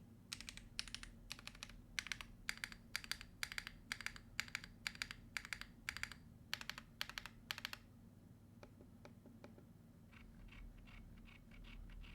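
Typing on a gasket-mount M1W mechanical keyboard with Akko Yellow linear switches in a polycarbonate plate and SA keycaps: a quick run of sharp keystroke clacks, which gives way about eight seconds in to fainter, sparser clicks.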